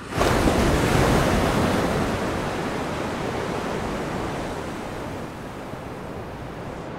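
Ocean surf: waves breaking on a sandy beach, a dense rush of noise. It comes in abruptly, is loudest for the first couple of seconds, then slowly dies down.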